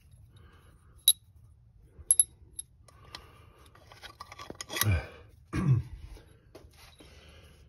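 Steel manifold bolts clinking against each other and against metal as they are pulled out by hand and gathered: a few sharp, short clinks in the first three seconds, then two louder, duller sounds a little past the middle.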